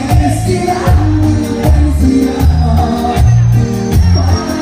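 Live band music with a steady beat: bass, electric guitars and percussion that includes congas.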